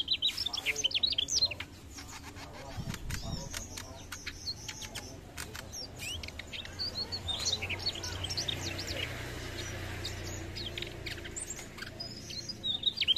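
Mugimaki flycatcher singing in quick runs of high chirps and trills. The runs come in the first second and a half and again near the end, with scattered single chirps between.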